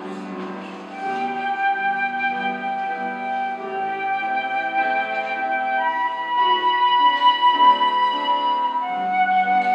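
Transverse flute entering about a second in with a slow melody of long held notes, over a keyboard accompaniment.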